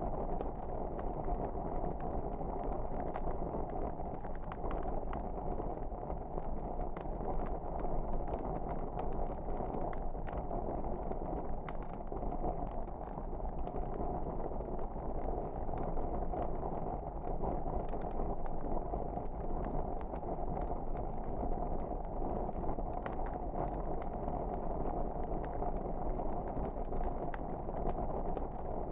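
Wood fire burning in a fireplace: a steady low rumble of flames with many small irregular crackles and pops.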